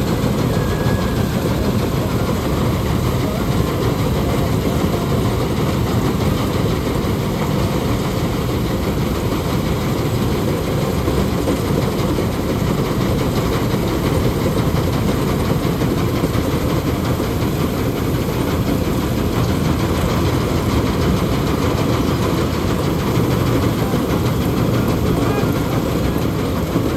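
Balkar 654 combine harvester running steadily: a loud, deep, unchanging machine noise.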